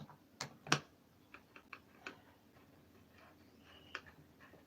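Small screws being driven back into the plastic cyclone housing of a Dyson Animal vacuum with a screwdriver: two sharp clicks, then a run of light ticks and another click near the end.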